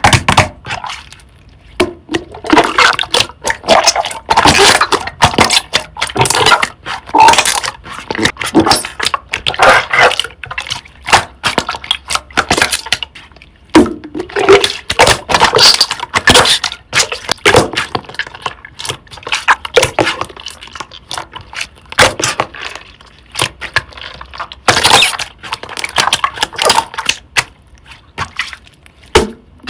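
Thick creamy slime being squeezed, stretched and pressed by hand, giving dense runs of sticky crackles and pops.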